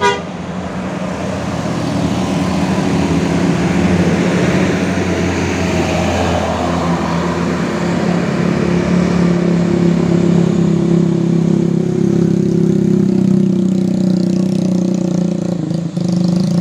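Tour bus diesel engine pulling steadily as the bus drives past. It grows louder over the first few seconds and then holds an even drone, with a brief dip near the end.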